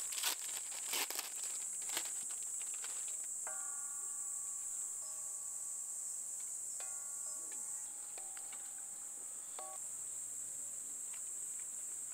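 Steady, high-pitched chorus of insects, with a few sharp crackles and clicks in the first two seconds. Several soft held tones, changing in pitch, come and go in the middle.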